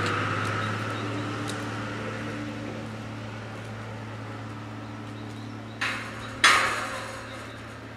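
A large welded metal gate swinging shut and clanging against its post about six seconds in: a lighter knock, then half a second later a loud metallic clang that rings out and dies away.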